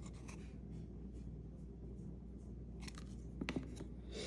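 Trading cards being handled and slid past one another, a few faint brushing and scraping sounds over a low steady hum.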